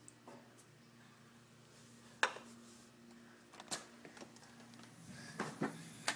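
A door being shut and latched: a few sharp knocks and clicks, a single one about two seconds in, another near four seconds, and a small cluster near the end, over a faint steady hum.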